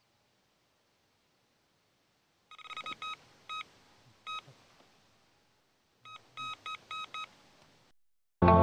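Electronic carp bite alarms beeping in short, irregular runs of bleeps as line is pulled across them, signalling a bite. Near the end, loud music cuts in.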